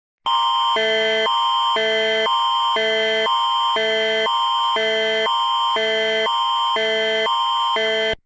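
Canadian Alerting Attention Signal, the emergency alert tone: an electronic alarm of steady tones switching about twice a second between a higher and a lower chord over a constant high tone. It sounds for about eight seconds, starting and stopping abruptly, and announces that an emergency alert message follows.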